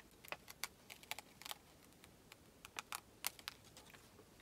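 Small scissors snipping through a paper pattern sheet to cut out an appliqué piece: a series of faint, short, irregular snips.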